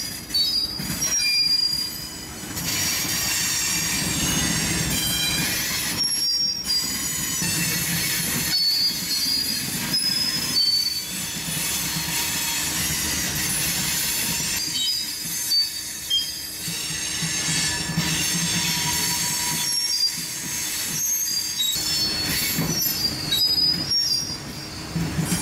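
Freight train rolling past, its steel wheels squealing in thin, high tones that come and go over the steady rumble and rattle of the passing cars.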